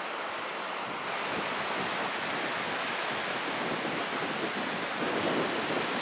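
Small waves washing in at the edge of a sandy beach, with wind on the microphone; the sound grows louder and brighter about a second in.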